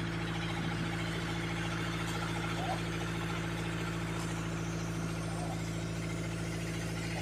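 Safari jeep's engine running at a steady low drone as it moves slowly through shallow floodwater, heard from on board the open vehicle.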